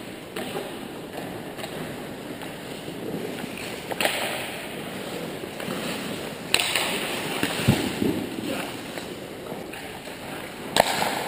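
Ice hockey play in an arena: a steady hiss of skates on the ice, broken by three sharp stick-and-puck cracks about four seconds in, about six and a half seconds in, and near the end.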